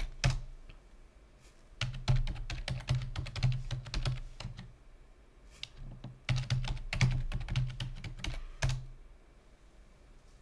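Computer keyboard typing in two quick runs of keystrokes with a few single key clicks between, then stopping about nine seconds in.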